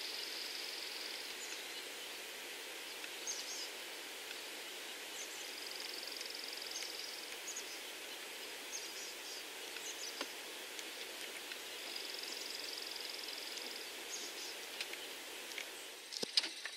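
Outdoor ambience with a steady background hiss, over which a small songbird sings a short, high, buzzy trill three times, about six seconds apart, with scattered short chirps between. A few sharp clicks near the end.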